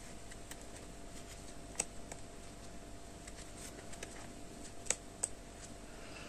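Metal crochet hook working single crochet stitches through yarn: faint rustling with a few soft clicks, the clearest about two seconds in and again near five seconds.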